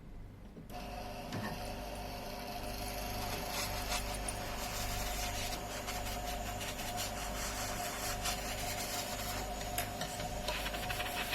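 A small electric tool running with a steady whine, with scratchy rubbing or scraping over it. It starts about a second in and grows rougher near the end.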